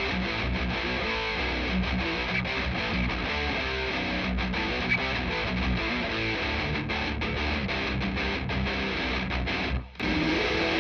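Heavy-metal rhythm part on distorted electric guitar, played through a Blackstar valve amp into a Celestion Neo Creamback 12-inch speaker in a 1x12 cabinet, close-miked and left without EQ. About ten seconds in it drops out briefly, then returns with a lead guitar adding held notes over the rhythm.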